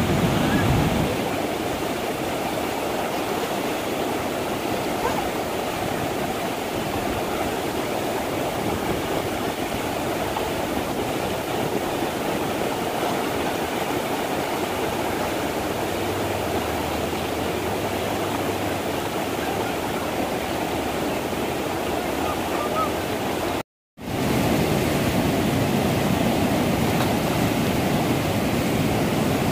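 Whitewater river rapids rushing steadily, a dense, loud wash of churning water. The sound drops out completely for a split second about three-quarters of the way through, then resumes.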